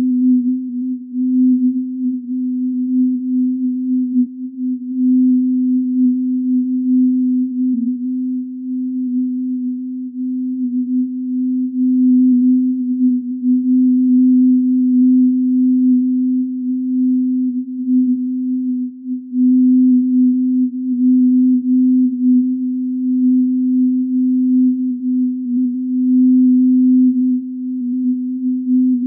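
Single low electronic sine tone, synthesized by a sonification system. It holds one steady pitch while its loudness wavers unevenly.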